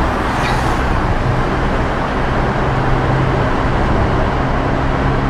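Road noise inside a moving car's cabin: a steady low engine hum under an even rush of tyre and wind noise.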